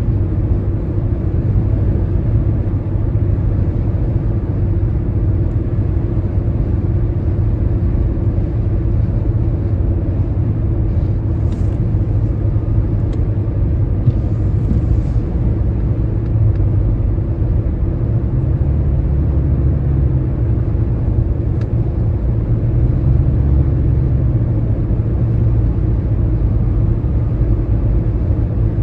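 Car driving at highway speed on a rain-wet interstate, with a steady low road and tyre rumble. A few faint, brief swishes come about midway.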